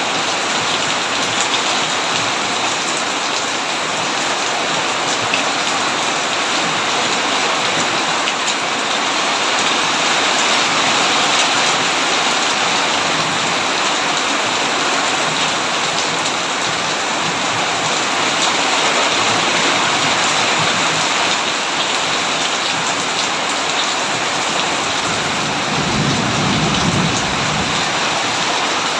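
Heavy rain falling steadily, with a short low rumble of thunder near the end.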